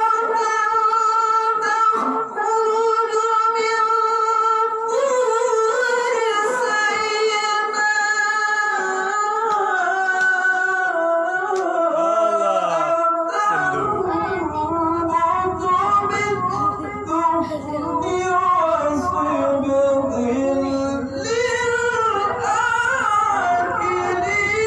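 A male qari chanting Quran recitation in a very high register through a microphone. He holds long steady notes, then moves into ornamented runs that bend up and down. A low hum joins about halfway through.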